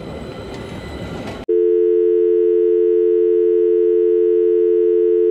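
Street noise as a tram passes for about a second and a half. Then a loud, steady electronic tone of two close pitches, like a telephone dial tone, cuts in abruptly and holds, drowning out everything else.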